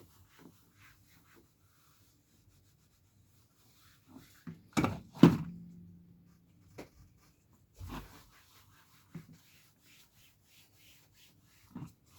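Handling noises while polishing plastic trim: light rubbing and small ticks, with two sharp knocks about five seconds in, the second ringing briefly with a low hum, and a duller thump a few seconds later.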